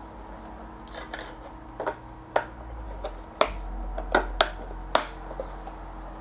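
Handling noise from a plastic FPV goggle: a series of light clicks and taps as its battery is pushed into the compartment and the goggle and its antenna are handled, over a faint steady hum.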